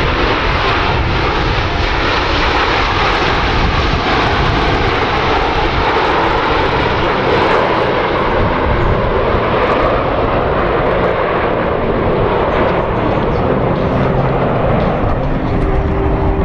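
Canadair CT-114 Tutor jet aircraft flying past, their turbojet engines making a loud, steady rush whose tone slowly sweeps lower.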